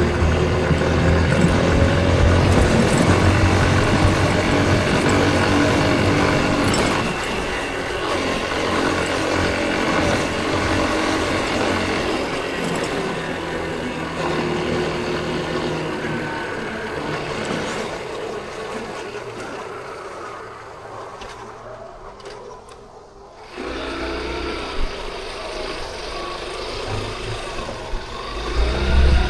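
Yamaha Crosser 150's single-cylinder engine carrying a rider through city traffic: loud with a steady engine note at first, then easing off and fading to a low hum. About 23 s in the sound comes back up suddenly, and near the end the engine pulls hard again.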